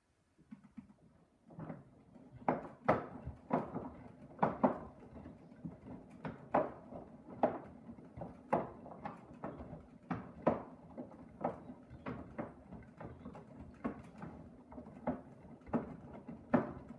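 Blomberg washing machine drum turning during a 40 °C main wash, its load of blankets tumbling through sudsy water: irregular sloshing knocks and sharp clacks, one or two a second, starting about half a second in.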